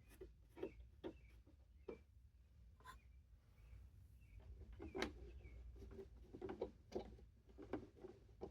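Faint, irregular clicks and taps of a 4 mm Allen key and small screws being worked by hand into a plastic vent trim piece on a motorcycle fairing, the loudest tap about five seconds in.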